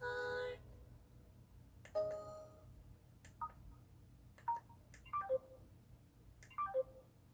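Samsung SMT-W6370 internet home phone playing its built-in electronic effect sounds: a tone that stops about half a second in, a single chime at about two seconds, then several short beeps with clicks, some falling in pitch.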